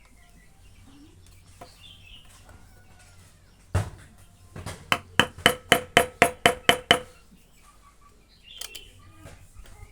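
A single knock, then a quick even run of about ten hammer strikes, roughly four a second, each with a short ringing tone.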